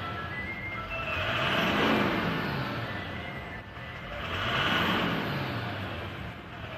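Toyota Land Cruiser 200's V8 turbo-diesel engine idling and revved up and back down twice, running without knocking: the knock is gone after the repair.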